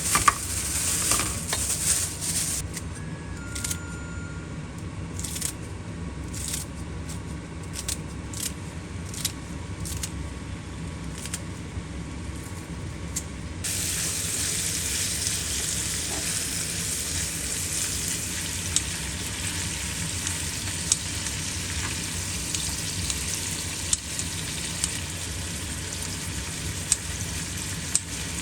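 Food sizzling in a frying pan, with scattered pops and taps at first. About halfway through, the sizzling suddenly grows louder and denser, as when more food goes into the hot pan, and it keeps going steadily after that.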